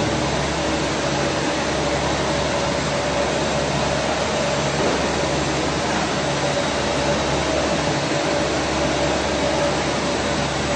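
Steady industrial machinery noise: a constant hiss with a low, even hum that does not change.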